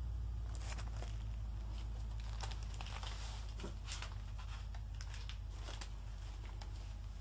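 Paper and sketchbooks being handled: irregular rustling and crinkling with scattered light clicks and knocks, over a steady low hum.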